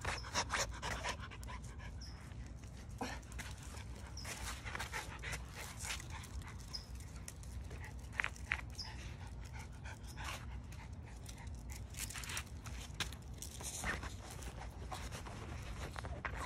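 Miniature schnauzers panting close by, with short, quick scuffling noises scattered throughout.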